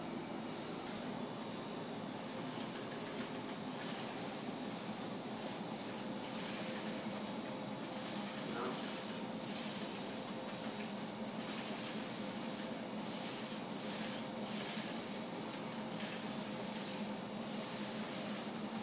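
Paint brush and then a paint roller working wet paint onto a wall: repeated rubbing swishes, roughly one a second, over a steady low hum.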